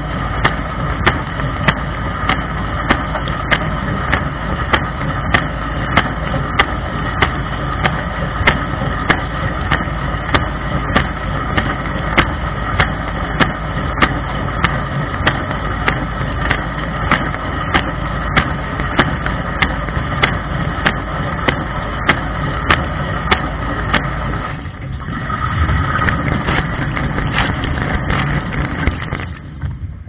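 Dishwasher wash cycle heard from inside the tub: the circulation pump running steadily while water sprays from the spinning lower spray arm, with sharp ticks about twice a second. Near the end the pump's low hum and the ticks stop, a louder rushing of water follows for a few seconds, and then the sound falls away.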